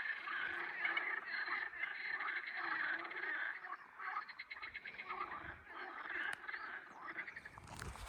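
A chorus of frogs calling, many rapid pulsed croaks overlapping.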